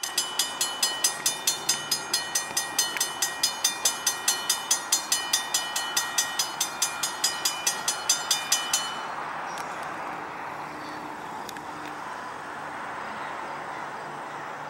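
Railroad grade-crossing bell ringing rapidly, about four strikes a second, as a GE B23-7 diesel locomotive approaches. The bell cuts off about nine seconds in, leaving a quieter steady noise.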